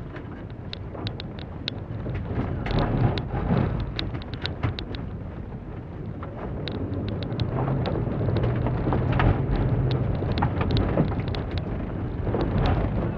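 Cabin noise of a 2006 Holden Barina driven hard on a dirt khanacross course: the engine and tyre rumble run on and on, with many sharp ticks of gravel and stones striking the car's underside and wheel arches.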